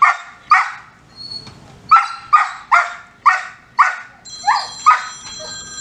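Dog barking repeatedly: about nine short, high-pitched barks in uneven clusters, with a pause of about a second and a half near the start.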